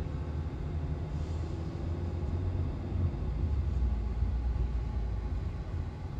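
Steady low rumble of a BMW X5 SUV heard from inside its cabin while it drives slowly: engine and tyre noise.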